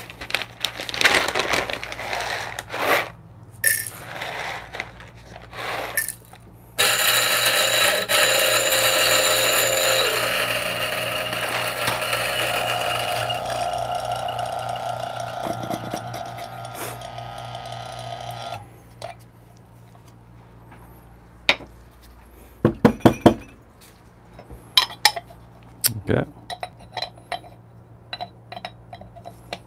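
Turin DF64P grinder with new Gorilla Gear flat burrs grinding through a small batch of coffee beans to purge the burrs ahead of a dose. The motor starts suddenly about a quarter of the way in, is loudest at first and fades, then stops after about twelve seconds. Scattered rattles come before it, and a few sharp knocks after it.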